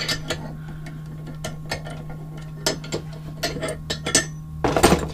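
Metal clicks and taps of a copper-tubing flaring tool being loosened and handled: the yoke's feed screw backed off and the clamp bar's wing nuts worked, in irregular ticks. A quick run of louder clicks comes near the end.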